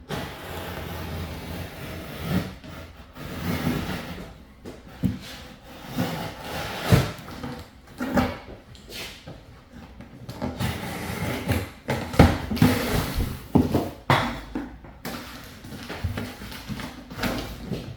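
A large cardboard box being cut apart and pulled open by hand: irregular scraping and rasping of cardboard, broken up by sharp knocks and thumps as the heavy box and its contents are handled.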